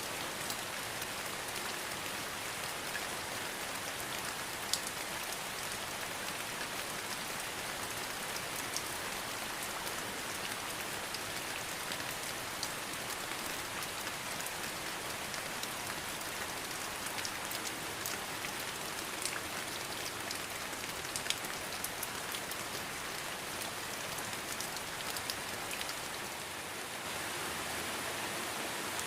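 Steady rain: an even hiss with scattered sharp drop ticks, dipping briefly in level near the end.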